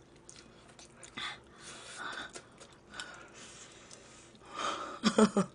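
Quiet sounds of a person eating a chicken wing: soft chewing and a few breaths through the nose, with a short burst of voice near the end.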